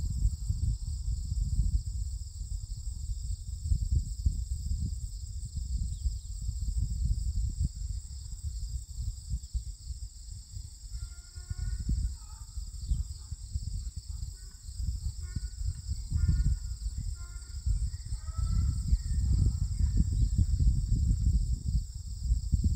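Outdoor summer ambience: a steady, high drone of insects over an uneven low rumble, with a bird chirping a run of short notes from about halfway through.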